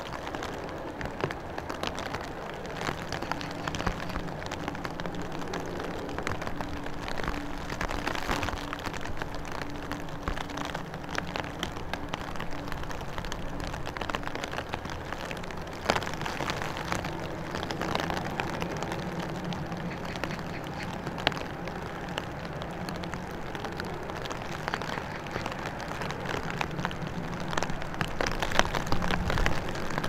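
Rain pattering and crackling on and around the microphone in gusty wind, over the steady low hum of an ATR 72-600's two turboprop engines as the aircraft taxis slowly on the wet runway.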